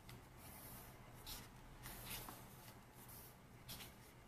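Paper pages of a K-pop album photobook being handled and turned by hand: a few short, soft paper rustles.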